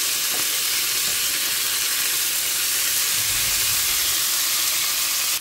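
Beef steaks searing in hot oil and butter with garlic cloves in a frying pan: a steady, loud sizzle. One steak is turned over with tongs, with a dull low bump a little past three seconds in.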